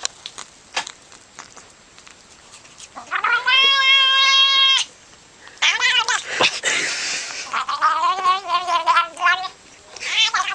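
A cat making several drawn-out calls. The first is long and held at one pitch, the next is shorter and bends in pitch, and near the end comes a wavering, warbling call.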